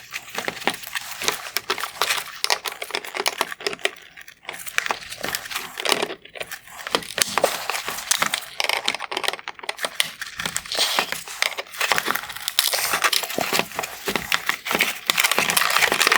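Plastic wire harness retainers being popped out and the harness handled inside a Porsche Panamera LED headlight housing: a dense, irregular run of plastic clicks, crackles and rustling, busier near the end.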